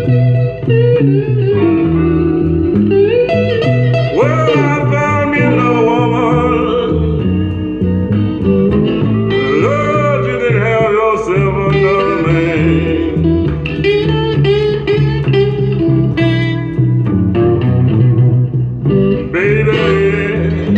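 A song with guitar and vocals played from a 45 rpm vinyl single on an RCA Victor J-2 record changer, heard through a Fisher CA-40 vacuum-tube amplifier and an Electro-Voice Baronet speaker with an SP-8B driver.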